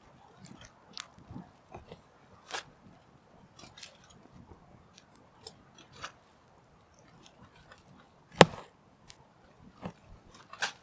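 Hands preparing food, with scattered light clicks and crinkles as beef is cut and added to eggplant being wrapped in aluminium foil. There is one sharp, loud click about eight seconds in.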